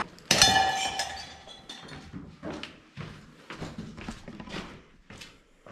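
A door shuts with a bang, and a metallic ringing tone fades over about a second. Then come a string of light knocks, about two a second.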